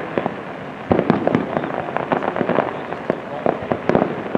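Aerial fireworks display: a dense run of shell bursts, bangs in quick succession with crackling between, the loudest arriving about a second in.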